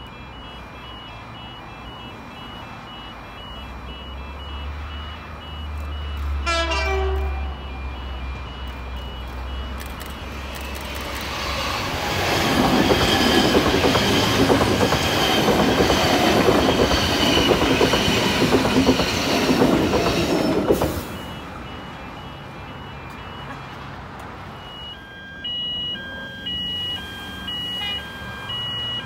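A double-deck C-set electric multiple-unit train gives a short horn blast, then passes close by with a loud rush of wheel and traction noise that cuts off suddenly. Near the end there is a steady run of repeating electronic beeps.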